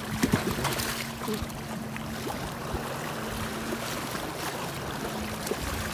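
Sea water sloshing and splashing among shoreline boulders, a steady wash with a few small splashes, over a faint steady low hum.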